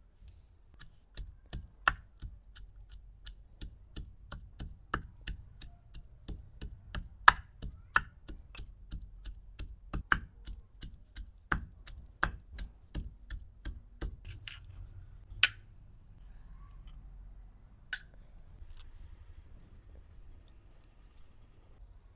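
Fresh mango ginger, turmeric and ginger being pounded with a pestle in a mortar: sharp, even strikes at about three a second, stopping after roughly fourteen seconds, then a few single strikes.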